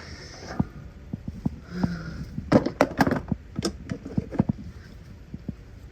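Irregular clicks and light metallic knocks from hands and tools working on an air conditioner's capacitor and its wire terminals, while a replacement dual run capacitor is being fitted. The clicks come thickest about halfway through.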